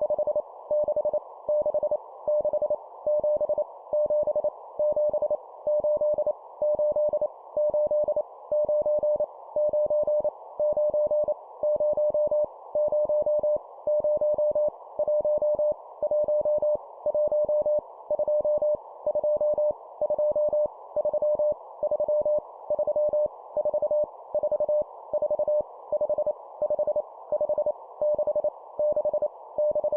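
Morse code (CW) at 25 words per minute: a single mid-pitched tone keyed in quick dots and dashes, sending numbers, each repeated three times, with short pauses between groups, over a steady background hiss.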